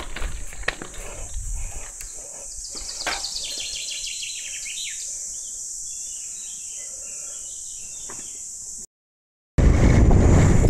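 Steady high-pitched chorus of cicadas, with a songbird singing a descending run of notes about three seconds in and a few knocks in the first couple of seconds. After a brief cut near the end, wind rushing on the microphone of a moving bicycle.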